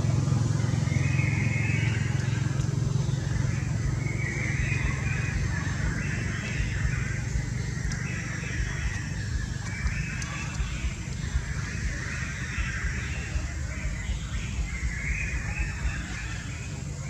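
A low vehicle engine hum that fades slowly away, with faint high sounds recurring every second or two above it.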